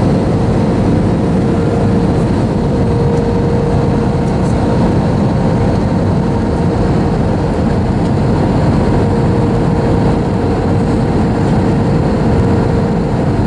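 Cabin noise inside an Airbus A321 descending on approach: a loud, steady roar of engines and airflow with a steady hum running underneath.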